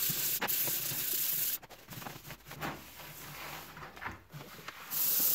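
280-grit wet-and-dry sandpaper rubbed by hand over a steel circular saw blade slick with WD-40, a steady scratchy hiss. The rubbing stops about a second and a half in, a few light knocks and handling sounds follow, and the hiss starts again near the end.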